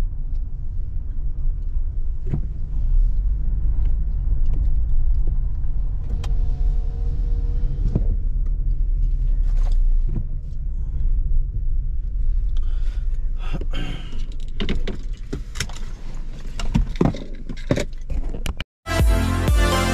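Steady low road rumble of a car heard from inside the cabin while driving. About two-thirds of the way through it gives way to a run of sharp clicks and knocks. Near the end it cuts off abruptly and electronic music with a steady beat begins.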